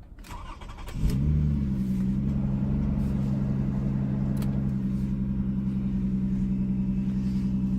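A 2005 Lexus ES 330's 3.3-litre V6 is cranked by the starter and catches about a second in. It then idles with a loud, steady exhaust drone from the rear of the car, which the owner has been told comes from a failing catalytic converter.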